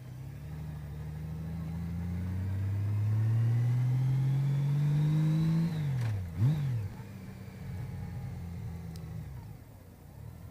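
Honda CBR600RR inline-four engine accelerating in a low gear, its pitch and loudness rising steadily for about six seconds. Then the pitch and level drop sharply, with a short burst of throttle, before the engine runs on more steadily and quieter.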